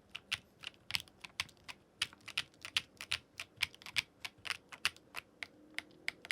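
Typing on a Meletrix ZOOM75 TIGA custom mechanical keyboard assembled with its silica gel mount: separate key clicks at an uneven pace of several a second, a sound test of that mounting option.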